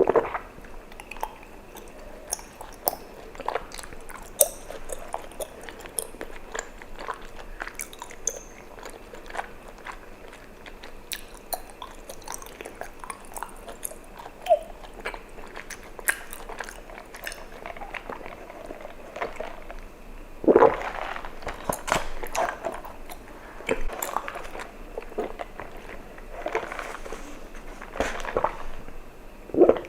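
Close-up mouth sounds of chewing sticky tapioca pearls from bubble tea, with many small wet clicks, and a few louder gulps, mostly about two-thirds of the way through and near the end.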